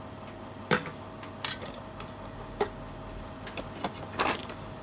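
Small metal tools clicking and clinking against a workbench about five times, the loudest near the end, over a steady background hum.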